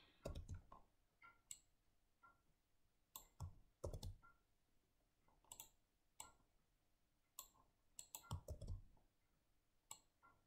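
Faint computer mouse clicks and keyboard key presses, coming irregularly, some in quick pairs, as shapes are copied, pasted and dragged on screen.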